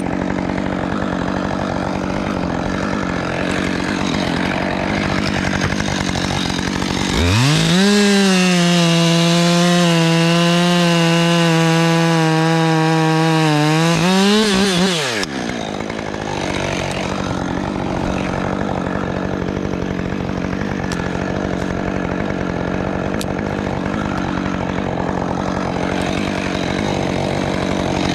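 Chainsaw running, with a steady drone at first. About seven seconds in, the saw revs up sharply to full throttle and holds there for about seven seconds, its pitch sagging a little under load, then drops back to a lower drone. It starts revving up again at the very end.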